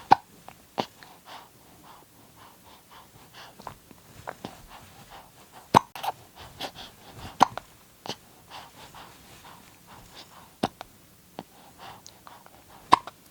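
A baby hiccuping: several sharp, short hics a few seconds apart, with fainter small mouth clicks between them.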